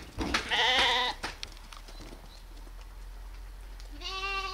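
Lambs bleating: a short, quavering bleat about half a second in, then a longer, steadier bleat starting near the end.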